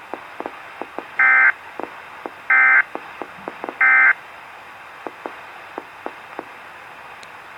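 Three short, identical buzzy bursts of digital alert data, each about a third of a second and spaced about 1.3 seconds apart, from a Weatheradio Canada receiver: the coded SAME alert signal that marks the start of a warning broadcast. Faint radio hiss with scattered static clicks between the bursts.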